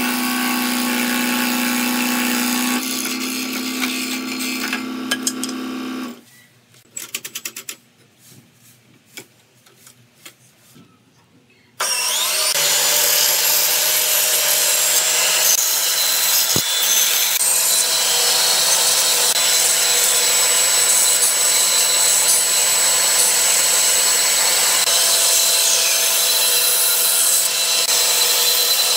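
Ryobi 405 mm scroll saw running with a steady hum as it cuts a wooden board. About six seconds in it stops, and a quiet stretch with a few light clicks follows. About twelve seconds in, a band saw starts and runs steadily as it cuts the wood.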